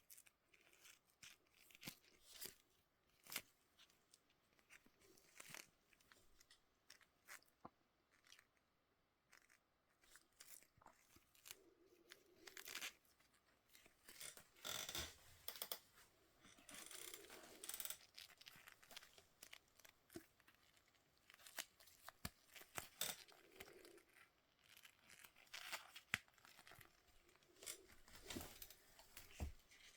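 Toy packaging being handled and opened by hand: faint, irregular rustling with scattered clicks and taps, busiest in the middle stretch.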